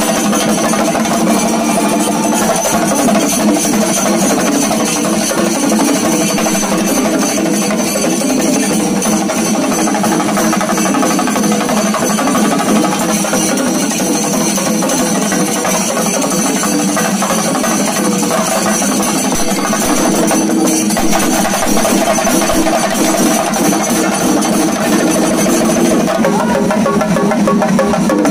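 Shinkari melam percussion ensemble: many chenda drums beaten rapidly with sticks over the steady clashing of ilathalam brass hand cymbals, loud and dense without a break.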